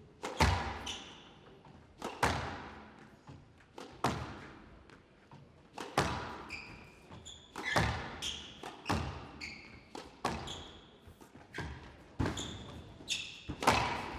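Squash rally: the ball is struck hard by the rackets and smacks off the walls about every one to two seconds, each hit echoing in the glass court, with short high squeaks of court shoes between shots.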